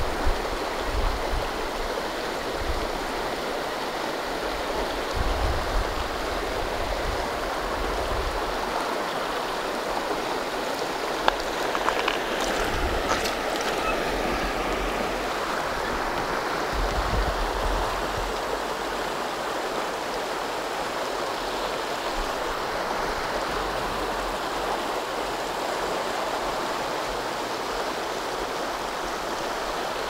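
Small mountain creek running over a shallow rocky bed: a steady rush of moving water, with a single sharp click about eleven seconds in.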